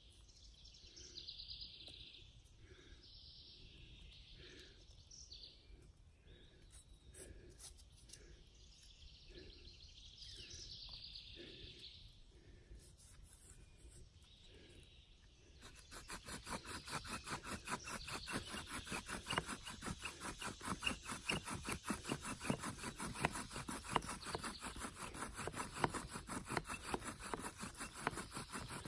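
Short chirping calls repeat about once a second. About halfway through, a bow drill starts up: a wooden spindle spins back and forth in a hearth board under a dogbane-cord bow, making a fast, steady rubbing and grinding that becomes the loudest sound.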